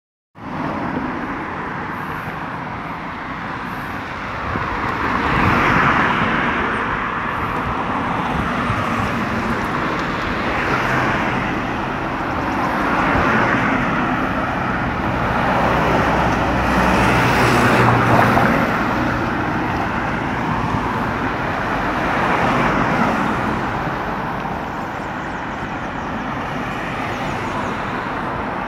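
Road traffic: cars driving past one after another over a steady hum of engines and tyres on asphalt. Several passes swell up and fade away.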